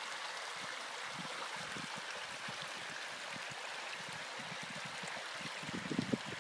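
Shallow water trickling steadily along the narrow, moss-lined channel of a self-building limestone (tufa) stream. Low thumps on the microphone start near the end.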